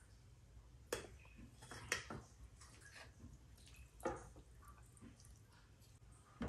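Faint eating sounds: four sharp wet clicks and smacks, the first three about 1, 2 and 4 seconds in and the last just before the end, over a low background.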